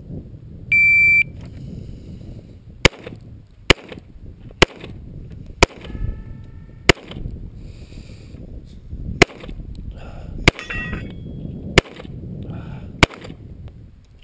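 A shot timer gives one electronic beep, then a Rock Island Armory 1911 pistol fires nine shots: five about a second apart, a pause of about two seconds, then four more at a slightly slower pace.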